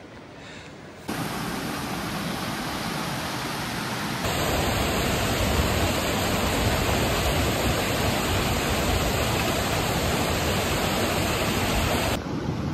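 Steady rushing of a mountain creek tumbling over rocks, starting abruptly about a second in and growing louder about four seconds in.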